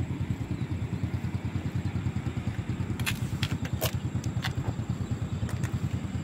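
Motorcycle engine idling with an even, rapid low pulse, about ten beats a second. A few sharp clicks come in the second half.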